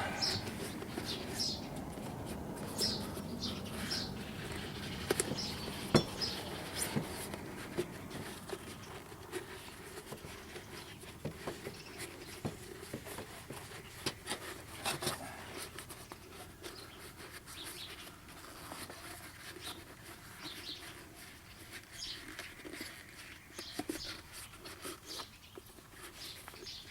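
Rubber inner tube being worked by hand into a hand-truck tire: scattered rustling and rubbing with a few sharp light knocks, the loudest about six seconds in, over birds chirping faintly.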